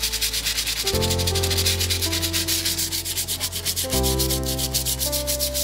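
Rapid back-and-forth hand scrubbing on the rusty steel blade of a butcher's meat cleaver, a fast, even rhythm of rasping strokes as the rust is scrubbed off.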